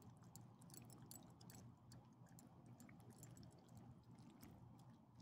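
Faint, irregular wet clicks of small dogs licking and chewing chicken out of a hand, over a low steady hum.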